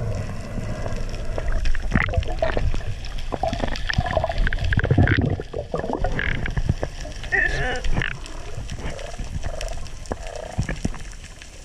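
Underwater sound from a camera below the surface: a muffled low rumble of moving water with scattered clicks and crackles, and short warbling tones coming and going.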